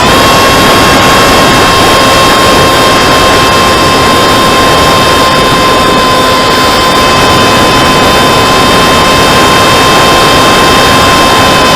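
Brushless electric motor (2216, 2000 kV) spinning a 7x5 propeller at a steady high whine on a model flying wing, heard close up from the aircraft itself; the pitch sweeps up as the throttle opens at the start and drops as it closes at the end. Heavy wind rush on the microphone runs underneath.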